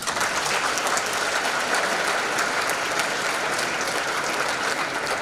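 Audience applauding, starting suddenly and holding steady.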